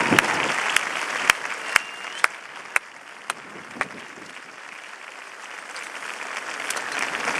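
Stadium crowd applauding, the applause fading away over the first few seconds, with scattered sharp single claps standing out, then a slight swell near the end.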